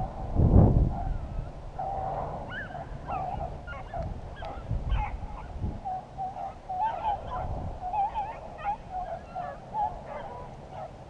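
A pack of rabbit hounds bays while running a rabbit's trail, many short, wavering calls overlapping. A gust of wind or handling rumbles on the microphone about half a second in.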